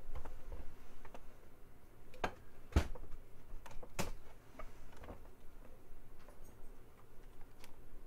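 Scattered light clicks and knocks of things being handled, the sharpest a few seconds in.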